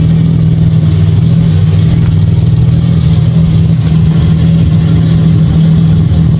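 Toyota Land Cruiser SUV's engine idling as it creeps forward: a loud, steady low drone that holds one pitch.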